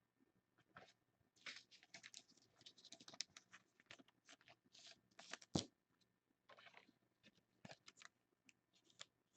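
Faint scratching, rustling and clicking of trading cards and their packaging being handled, with one sharper click about halfway through.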